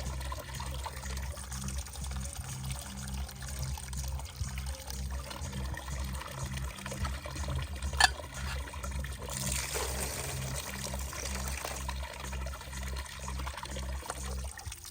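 Pulsing bass beat of electronic dance music under a steady rush of running water, with a brighter surge of water noise about ten seconds in and a single sharp click shortly before it.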